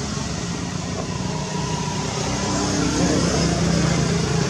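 A steady, engine-like low hum over an even background noise.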